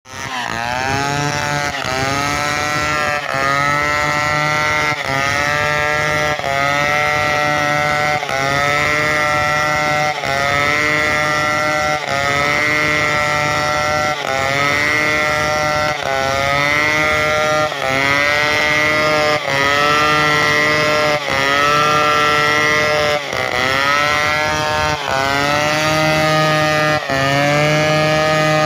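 Two-stroke chainsaw running at high revs while cutting timber into rafters, its pitch dipping and climbing back about every one to two seconds as the load comes and goes.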